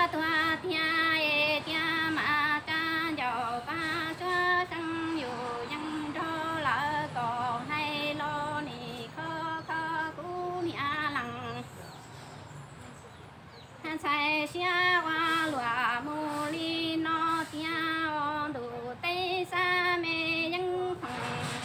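A woman singing Hmong kwv txhiaj, a courting song in sung verse, with long wavering held notes and no accompaniment. She pauses for about two seconds midway, then resumes.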